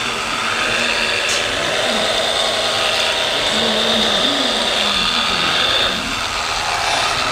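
Small electric motor whirring in a radio-controlled model soil compactor as it drives across sand: a steady high whine that dips about six seconds in.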